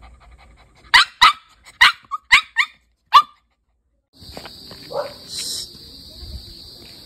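A Chow Chow barking, about seven short sharp barks in quick succession. After a sudden cut to silence a steady high-pitched whine takes over.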